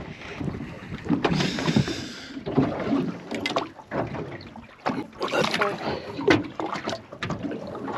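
Water slapping and lapping against the side of a small aluminium boat's hull, with scattered knocks and handling noises against the boat.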